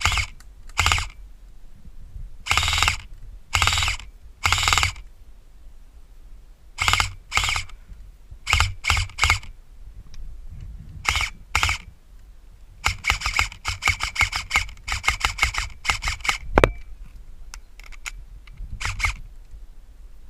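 Airsoft rifle firing: about a dozen single shots spaced out over the first twelve seconds, then a quick string of rapid shots for about three seconds, ending in one sharp click.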